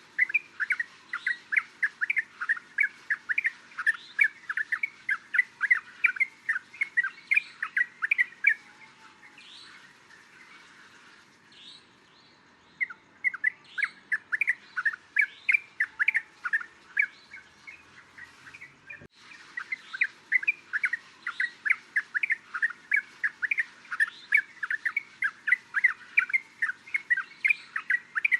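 Yellow-vented bulbul calling: rapid runs of short notes, about three or four a second, broken by a pause of a few seconds about a third of the way in.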